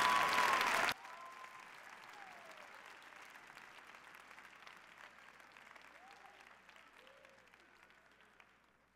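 Audience applauding and cheering with whoops, loud at first; the sound drops sharply about a second in, and the quieter applause then fades out.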